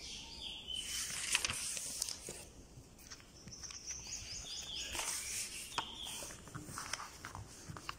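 Paper pages of a workbook being turned and handled, giving irregular rustles and soft knocks. A small bird chirps in short repeated notes in the background.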